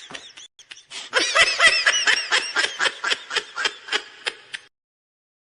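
A high-pitched laugh in quick repeated bursts, about five a second, starting about a second in and trailing off before the end.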